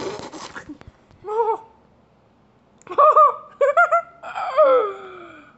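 High falsetto voice making wordless moans and squeals: one short call about a second in, then a string of short arching calls from about three seconds in, ending in a longer call that slides down in pitch. A brief rustle of handling at the start.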